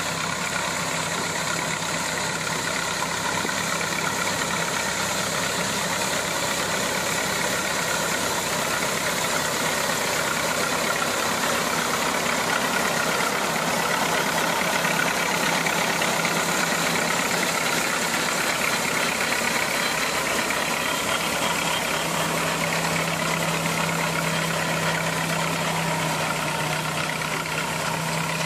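1914 Sunshine Auto Header running as it harvests wheat: its engine and threshing works make a steady, unbroken mechanical drone. A low hum grows stronger about three quarters of the way through.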